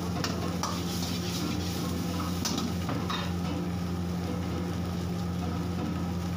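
Metal ladle scraping and knocking in a wok during stir-frying, a few strokes in the first three seconds, over food sizzling in the hot pan and a steady low hum.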